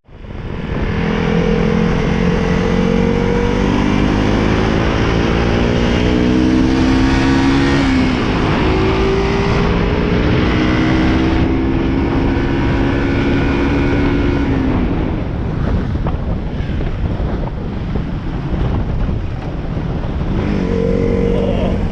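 Motorcycle engine running under way, its pitch climbing and then falling back twice, over steady wind rush on the microphone.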